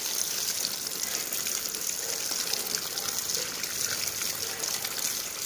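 Water running steadily from an outdoor tap and splashing over rubber slippers held under the stream.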